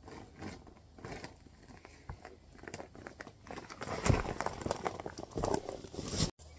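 Rustling and crinkling with scattered knocks and clicks of things being handled, getting busier and louder from about four seconds in, then cutting off abruptly near the end.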